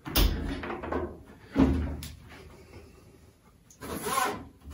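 Harvest Right home freeze dryer door being unlatched by its handle and swung open, with a sharp clunk at the start and another knock a second or two later. Near the end comes a short scrape as a metal tray is pulled on its shelf.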